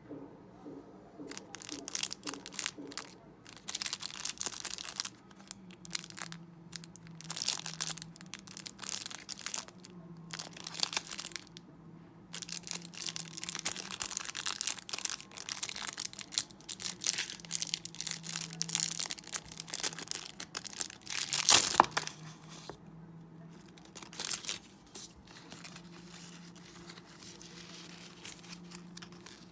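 Foil trading-card pack wrapper crinkling and tearing as it is opened and handled, in irregular bursts with a loud crackle about twenty-one seconds in.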